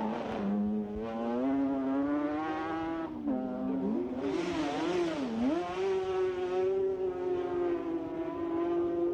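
Racing sidecar outfit engines screaming at high revs, the pitch dipping and climbing again twice as the machines slow and accelerate. The sound swells loudest about four to six seconds in as a machine passes close.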